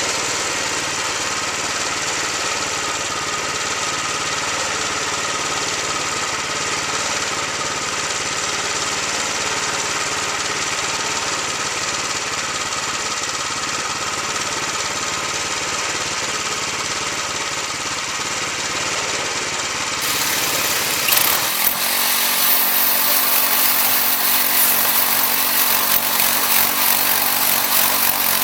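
Wood-Mizer LX25 portable band sawmill running steadily on its 7 hp Kohler engine as its band blade saws white oak. About 20 seconds in, the sound changes abruptly to a brighter, hissier tone and the deep hum drops away.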